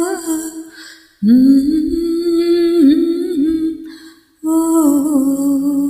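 A single voice humming a slow wordless melody in three long held notes, with brief breaks between them.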